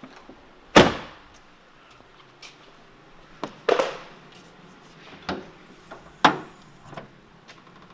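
A series of about five sharp clunks and thuds, the loudest about a second in and the rest spread a second or two apart: the bonnet of a 1998 Saab 900 being unlatched, lifted and propped open.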